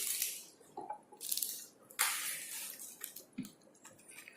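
Close-up mouth sounds of someone chewing a Pocky Rich Matcha biscuit stick: a few short, soft crunching and smacking noises with small clicks between them.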